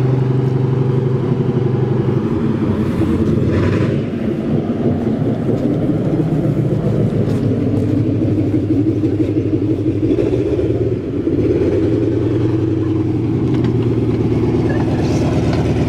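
WWII tank engine running as the tank drives slowly along a gravel drive, a loud steady rumble whose pitch shifts about two seconds in and again near eleven seconds.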